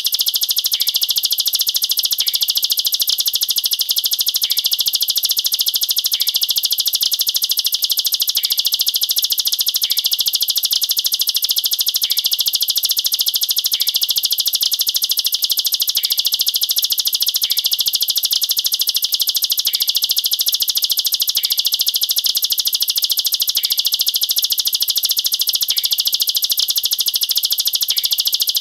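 Plain prinia (ciblek sawah) singing its rapid-fire 'nembak rapat' song: very fast high notes repeated in an unbroken stream, with faint short chips every second or two.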